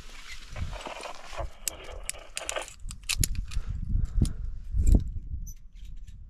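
Carabiners and cams on a climbing harness rack clinking and jangling in a run of sharp metallic clicks, over low thumps and scuffs of movement.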